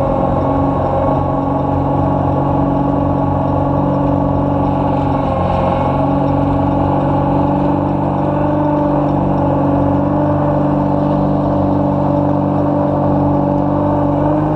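Ice resurfacer's engine running steadily, heard close up from aboard the machine, its pitch stepping up slightly about halfway through.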